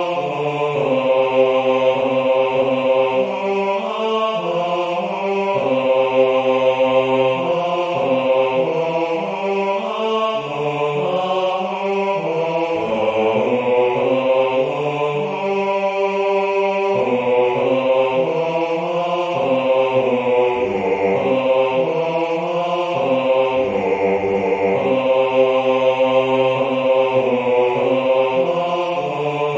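Notation-software playback of a four-part hymn's bass line in a sustained, choir-like synthesized voice: a single low part moving through slow held notes at an andante pace, one note after another without breaks.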